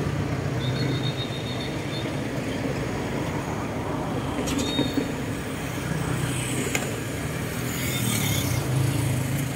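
Road traffic: vehicle engines running with a steady low hum and road noise.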